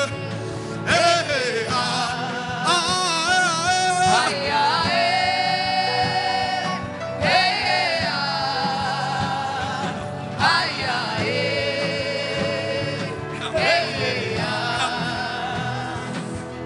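Gospel worship singing: a voice sings long, wavering held notes in phrases of a few seconds, over a steady musical accompaniment.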